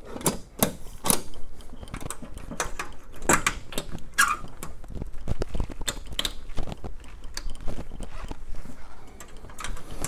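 Scattered clicks and light knocks of a headlight's glass lens and metal rim being handled and fitted into the headlamp shell.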